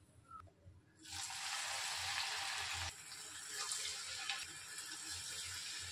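Chakli dough spirals deep-frying in a pan of hot oil, the oil sizzling and bubbling steadily. The sizzle sets in about a second in and drops a little in level about three seconds in.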